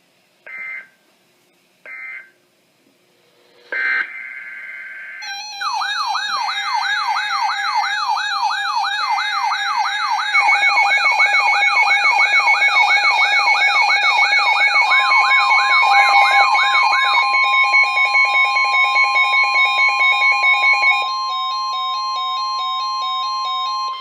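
NOAA Weather Radio SAME digital data tones: three short screeching bursts about 1.4 s apart, then another burst about 4 s in. From about 5 s, several weather alert radios set off their alarms together in a fast warbling siren and rapid repeating beeps, which grow louder about 10 s in and partly stop about 21 s in. A steady alert tone near 1 kHz, the broadcast 1050 Hz warning alarm tone, comes in about 15 s in and holds.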